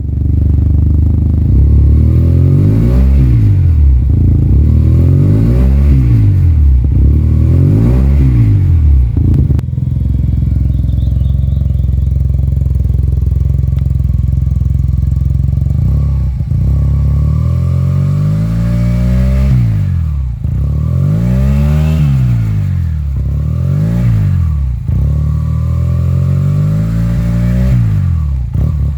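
SYM Maxsym TL 500 maxi-scooter's parallel-twin engine running through an Avionic Dual Purpose aftermarket exhaust, blipped to rev and fall back three times. It then settles at a steady idle for several seconds before a second run of about five quick revs.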